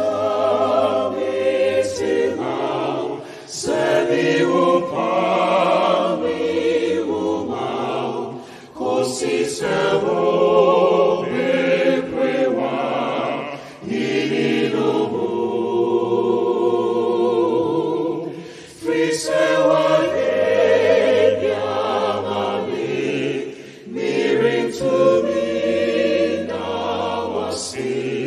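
Gospel vocal group singing in harmony behind a male lead singer, in phrases of a few seconds with short breaks between them, with low held notes underneath.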